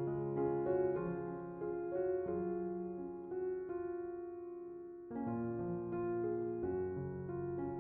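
Background piano music: a melody of changing notes over longer-held low notes.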